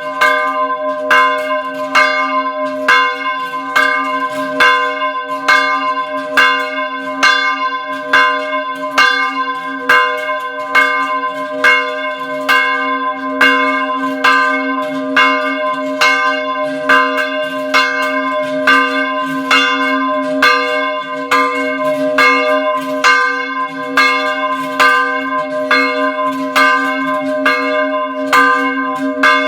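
Small church bell being rung in a steady rhythm, about two strokes a second, each stroke ringing on into the next over a sustained low hum note.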